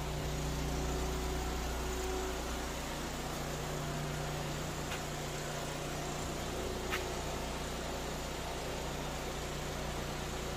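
Steady low hum and hiss of room noise in a large hall, with two faint clicks near the middle.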